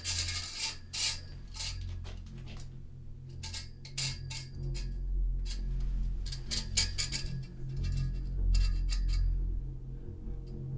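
Metal chain rattling and clinking in several short bursts, over a steady low droning hum from the film's score.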